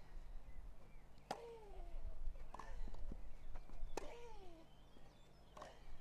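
Tennis rally: racquets striking the ball about every 1.3 s, five shots in all. A player lets out a short falling grunt on every other shot.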